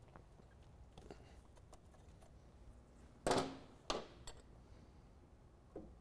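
Hand tools being handled under the hood while a pliers and a vacuum gauge hose are worked onto the intake manifold: a few scattered clicks and clinks, with a sharper knock about three seconds in and another just after it.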